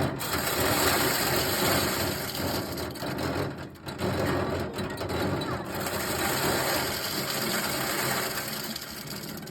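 Old corn sheller running and shelling ears of corn: a steady, dense mechanical clatter with brief dips about four and six seconds in.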